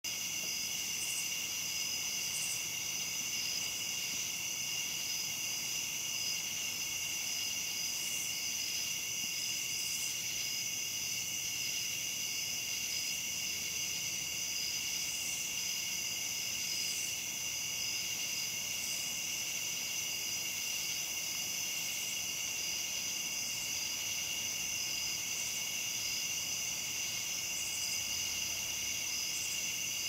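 A night chorus of crickets and katydids (cha-chas): a steady, continuous trilling in several high pitches, with short, higher calls breaking in every second or few.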